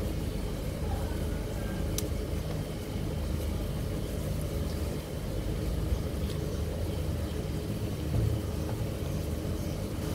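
Steady low rumble with a single sharp click about two seconds in.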